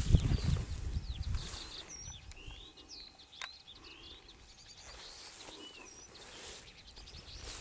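Small songbirds singing over open farmland, a stream of quick chirps, trills and short whistled glides. A low rumble of noise on the microphone fills the first second and a half.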